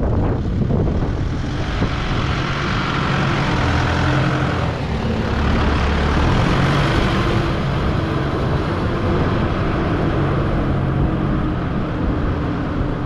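Diesel engine of a Deutz-Fahr Agrotron tractor running as the tractor drives past towing a rotary rake, its hum shifting slightly in pitch.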